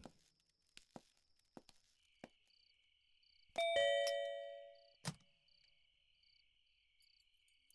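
A few faint footsteps, then a doorbell chimes once about three and a half seconds in and rings out for about a second. A sharp click, a door latch being opened, follows soon after. Crickets chirp steadily in the background from about two seconds in.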